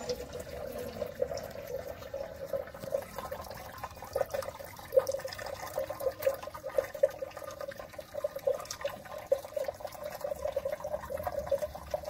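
Water running from a drinking water dispenser's tap into a plastic bottle, a thin stream trickling steadily as the bottle fills.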